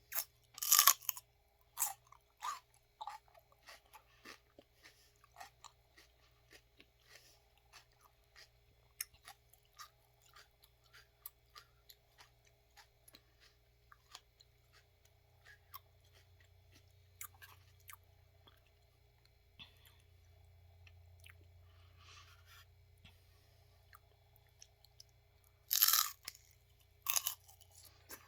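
Biting into a raw celery stick with loud crunches, then long close-up chewing with many small crisp crunches; two more loud bites come near the end.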